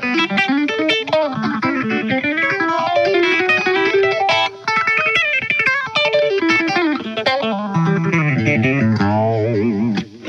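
Solo electric guitar playing fast hybrid-picked pentatonic licks, a quick run of separate notes with a brief break about halfway, then settling into lower notes held with wide vibrato near the end.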